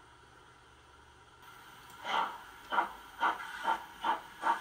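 LMS 8F steam locomotive sound from a Doehler & Haass DCC decoder in a model locomotive, starting away: a faint hiss, then exhaust chuffs from about two seconds in that quicken as the engine gathers speed.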